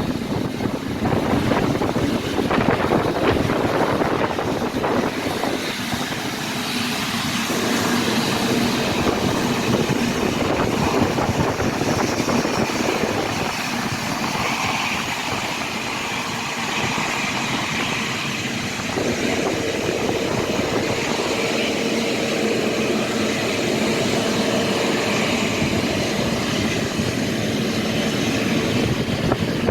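Jet airliner engines running steadily: a continuous rush with a faint whine in the upper range that comes and goes.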